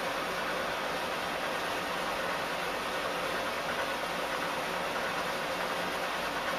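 A steady, even hiss with a faint low hum underneath, no distinct events and no change in level.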